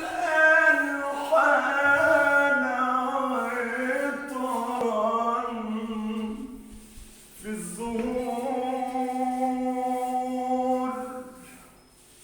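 A man singing an Arabic devotional chant with long, slowly gliding held notes, in two phrases. The second phrase fades out near the end.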